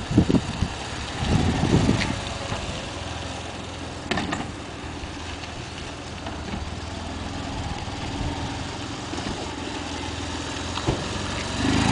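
BMW motorcycle-and-sidecar outfit running at low, steady revs as it is ridden slowly. In the first two seconds a few loud gusts of wind buffet the microphone.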